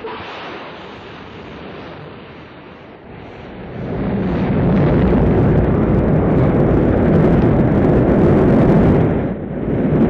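Space Shuttle launch: the rocket engines give a deep, loud rumble that starts abruptly, grows louder about four seconds in and dips briefly near the end.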